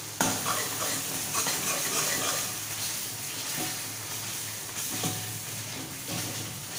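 Onion-tomato masala gravy sizzling in hot oil in a kadhai while a metal spatula stirs and presses it, scraping the pan, with a sharp clink just after the start. This is the bhuna stage, frying the masala until the chopped vegetables turn soft and crush.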